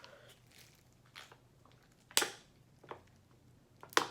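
Close-up chewing of a piece of sausage: a few scattered smacks and mouth clicks, the loudest about two seconds in and another near the end.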